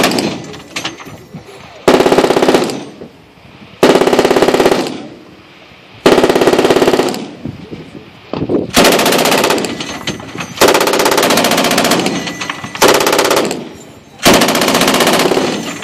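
Belt-fed machine gun fired from a bipod in short bursts of automatic fire, about seven bursts roughly a second long with brief pauses between them. Each burst trails off in an echo.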